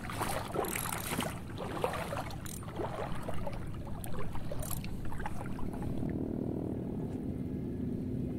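Irregular clicks and rustles of an ultralight rod and spinning reel being handled for a cast, then from about five seconds in a steady low hum of a boat engine running.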